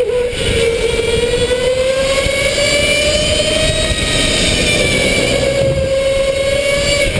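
Electric go-kart motor whining under power. Its pitch sags briefly at the start, then climbs slowly and holds as the kart accelerates, over a steady rushing noise.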